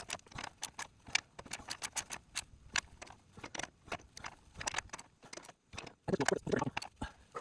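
Hand ratchet clicking in short runs while bolts on a RAV4's front sway bar bushing bracket are tightened, with a louder, denser stretch of clicking about six seconds in.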